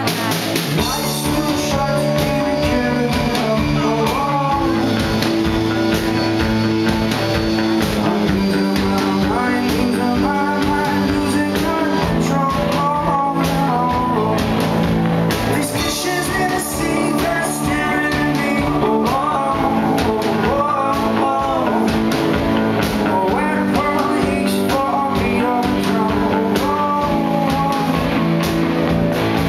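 Rock band playing live: a singer over guitar and a steady drum beat.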